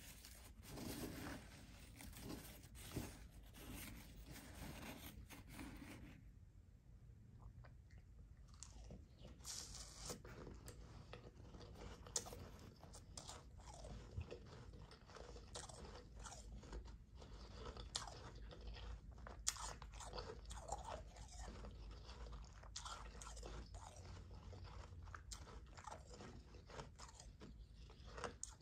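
Soft, powdery ice being chewed: a long run of small crisp crunches, denser and more continuous in the first few seconds.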